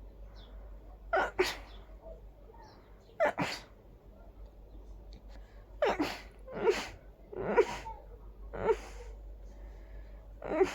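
A person's sneezing fit: a run of about six big sneezes with pauses between them, coming closer together in the second half.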